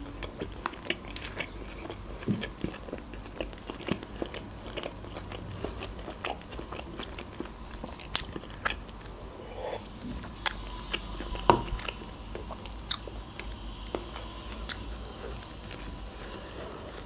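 A person chewing a McDonald's burger: many soft, wet mouth clicks and smacks, with another bite taken near the end.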